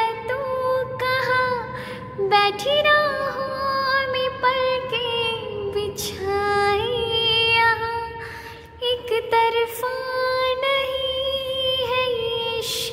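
A woman singing a slow melody in a high register, holding long notes and bending between them.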